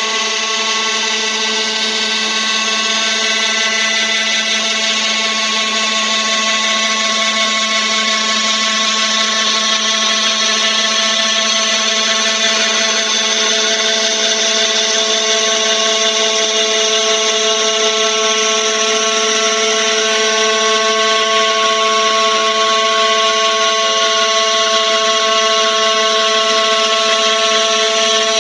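Spindle motor of a homemade CNC router running steadily, a constant whine that holds the same pitch throughout.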